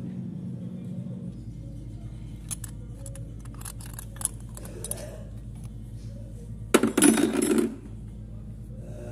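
Light metallic clinks of steel tractor-transmission parts being handled, then a louder metal clatter lasting about a second, a little after the middle.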